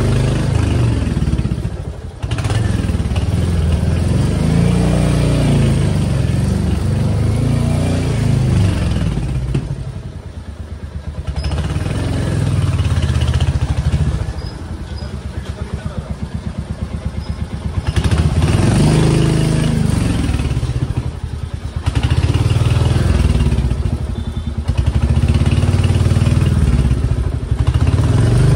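Small motorcycle engine heard from the pillion seat, running through the gears. Its note swells and eases off several times as the bike speeds up and slows down.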